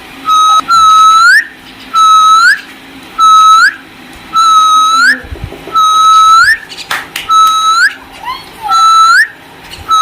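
A whistled note repeated about eight times, each one held level and then flicking sharply upward at the end, at an even pace of roughly one a second.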